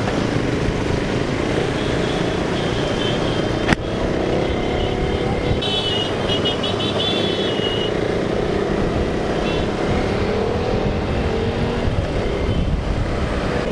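Road traffic noise from riding in city traffic, with engines running steadily. A single sharp click comes about four seconds in, and a run of short, high beeps about six to eight seconds in.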